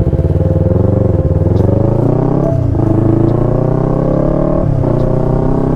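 Motorcycle engine accelerating, its pitch climbing, then dropping at upshifts about two and a half seconds in and again near the end before climbing again.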